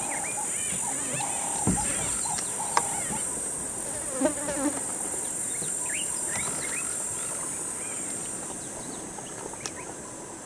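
A steady, high-pitched insect drone, with scattered short bird chirps over it.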